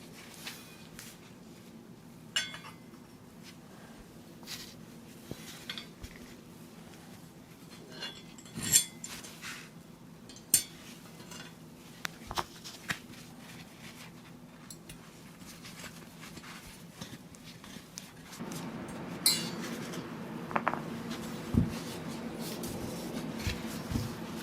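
Scattered light metallic clicks and clinks of small PC parts being handled during assembly. About eighteen seconds in, a steady low hum comes up under them.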